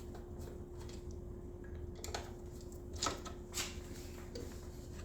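A few light clicks and taps from small screws and a hand tool being worked during headlight assembly, scattered over a few seconds, with a steady faint hum underneath.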